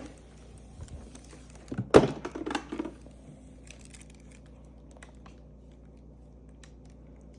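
Coffee-maker parts being handled and fitted, likely the filter basket going in: a sharp knock about two seconds in with a brief rattle of knocks after it, then a few faint clicks.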